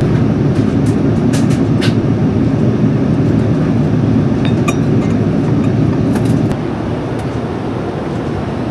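Steady low rumble of an airliner cabin in flight, with a few light clicks and clinks; the rumble drops a little about two-thirds of the way through.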